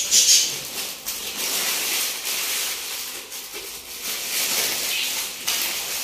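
Crinkling and rustling of a paper wrapping sheet as a filled sandwich roll is rolled up in it and its edges are tucked in, with a louder crinkle at the start.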